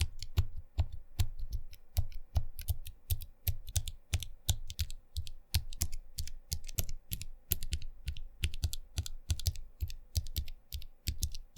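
Mechanical keyboard switches on an Akko switch tester being pressed one after another: a fast, irregular run of sharp clicks, each with a low thud as the key bottoms out, several a second.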